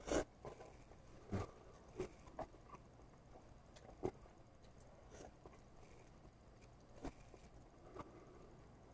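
Close-up eating sounds from someone eating noodles with chopsticks: a handful of separate soft clicks and smacks, the loudest right at the start.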